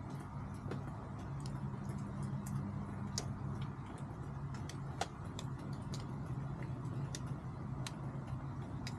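Chickens pecking at feed: irregular sharp ticks, about one or two a second, over a steady low hum.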